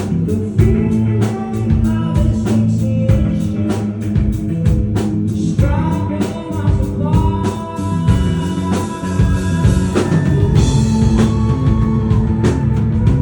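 Live rock band performance: drum kit, electric guitars and bass, with a sung vocal line held over the band.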